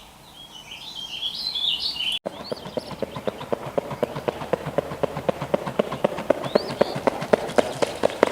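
Small birds chirping for about two seconds, then a woodpecker tapping on wood: a long series of sharp knocks that comes faster and louder toward the end, with a few short bird calls over it.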